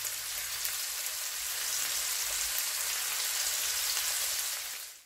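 Pieces of beef liver sizzling steadily as they fry in vegetable oil in a frying pan, fading out at the very end.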